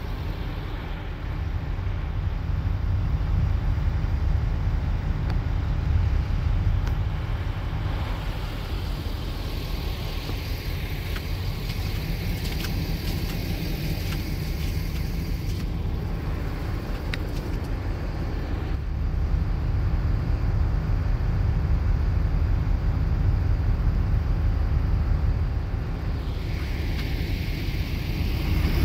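Steady road noise inside a moving car on a wet, slushy highway: a low rumble of engine and tyres under a constant hiss of tyres on the wet road.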